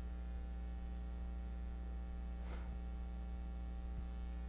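Steady electrical mains hum: a low drone with a row of fainter steady higher tones above it. A brief soft noise comes about halfway through.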